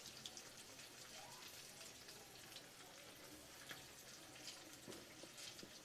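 Faint sizzling and crackling of meat-filled samosas frying in a pan of hot oil, with scattered small pops.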